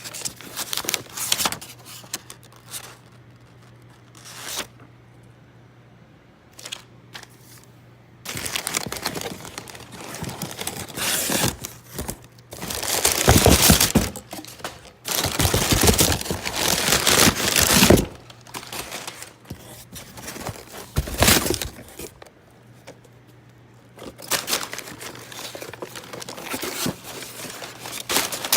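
Packaging being handled and torn open by hand: irregular bursts of crinkling and tearing, loudest in the middle, with short quiet pauses between, over a faint steady hum.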